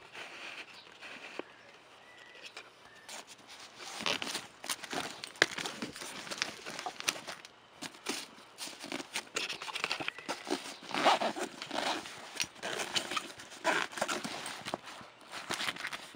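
Lowepro Classified 200 AW nylon camera bag being handled and turned over: irregular rustling and clicks of fabric, straps and clip, sparse at first and much busier from about four seconds in.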